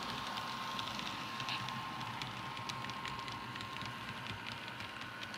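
HO-scale model diesel locomotives running slowly on track: a faint steady rumble and hiss with scattered small clicks from the wheels and a steady high whine.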